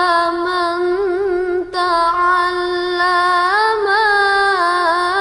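A single voice chanting in Arabic, in slow, long-held notes with ornamented turns, with a short break for breath about a second and a half in.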